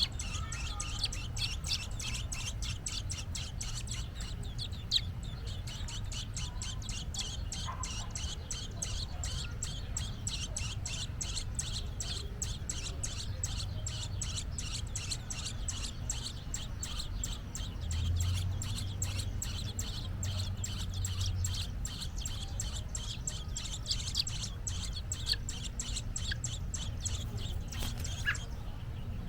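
American robin calling insistently: a rapid, unbroken run of short high chirps, several a second, the call of an agitated parent near its grounded fledgling. A steady low rumble lies underneath and swells for a few seconds about two-thirds of the way in.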